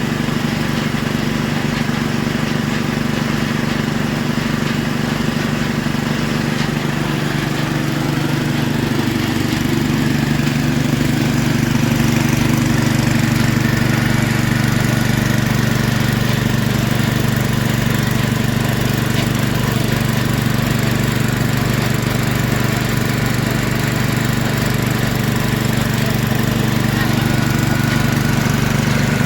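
Engine of a well-drilling machine running steadily under load while boring the well, picking up a little in pitch and loudness about ten seconds in.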